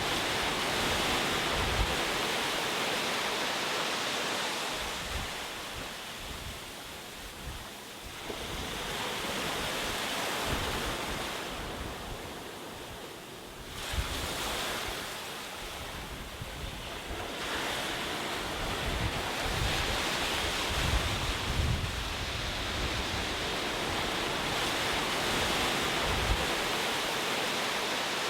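Ocean surf: waves breaking and washing on the shore, the rush of water swelling and falling back several times.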